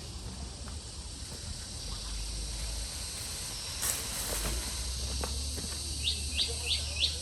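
Steady high-pitched insect drone outdoors, with a brief rustle-like noise about four seconds in and a run of five quick rising chirps, about three a second, near the end.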